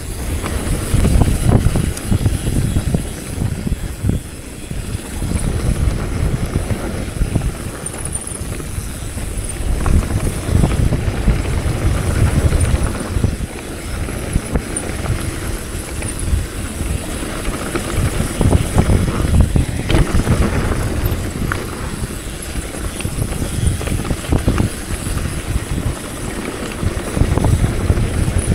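Mountain bike being ridden down a trail: wind buffeting the microphone over a steady rumble of tyre noise, with frequent knocks and rattles from the bike over bumps.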